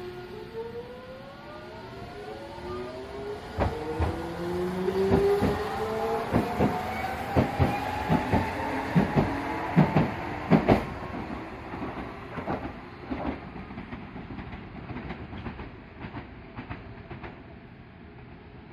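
Hiroshima Electric Railway 3800-series tram pulling away from a stop. Its electric traction motors whine, several tones rising steadily in pitch for about ten seconds as it gathers speed. About three seconds in the wheels start clacking over rail joints and points, loudest around ten seconds in, then the sound fades as the tram moves off.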